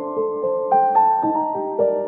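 Background music: a slow, gentle piano melody, a new note about every half second.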